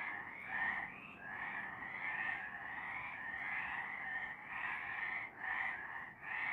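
Several frogs calling at night, their calls overlapping in a continuous chorus of short repeated croaks, a few each second.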